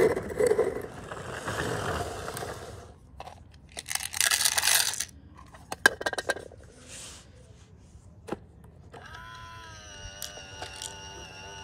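Small plastic toy garbage bins clicking and scraping as they are set down one by one on concrete, with some rustling handling noise. About nine seconds in, background music with sustained tones starts.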